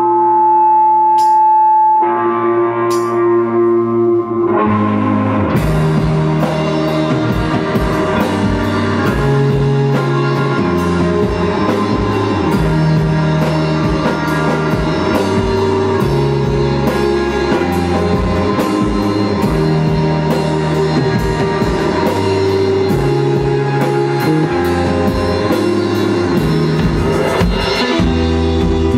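Live rock band playing an instrumental passage. Ringing guitar notes are held for the first few seconds, then drums and electric bass guitar come in about five seconds in with a steady beat.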